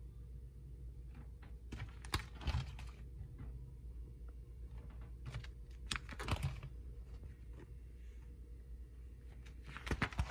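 Clear plastic binder sleeve pages crinkling and rustling as they are turned, three times about four seconds apart, over a low steady hum.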